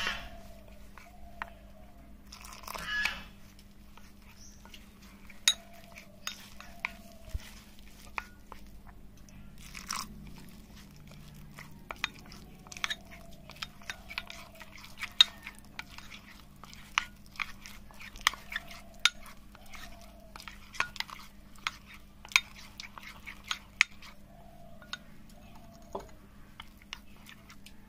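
Irregular sharp clicks and light scraping of kitchen utensils and dishes during food preparation.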